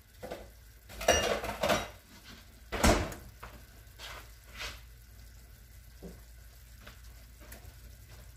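Kitchen containers and utensils clattering as they are put away: a cluster of clinks and knocks about a second in, a single louder knock near three seconds, then a few lighter taps.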